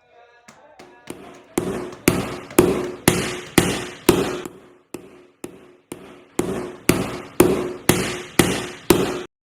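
Hammer blows struck in a steady rhythm, about two a second, each with a short ringing tail. They start faintly, grow louder within the first two seconds and cut off suddenly near the end.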